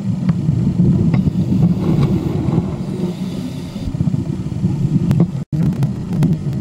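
Muffled low rumble of underwater noise picked up through a home-made underwater camera housing, with a few scattered clicks. It cuts out for an instant about five and a half seconds in.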